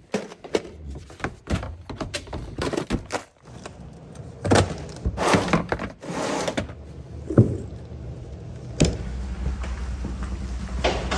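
Gear being packed by hand: a plastic storage tote and its lid knocked, slid and clicked into place, a string of thunks and scrapes. A low steady hum sets in with a sharp knock a few seconds before the end.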